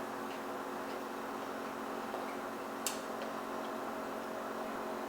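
Steady room hum with several fixed tones, broken by one faint click about three seconds in.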